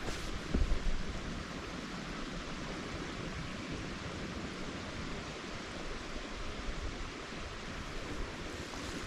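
Volume-boosted field recording from the woods: a steady hiss and wind-like rushing, with a few low bumps in the first second.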